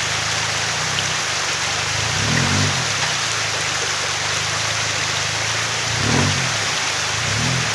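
Creek water rushing over rocks, with a lifted Toyota Hilux Surf's engine running at low revs beneath it; the engine is briefly revved up and back down about two seconds in and twice more near the end.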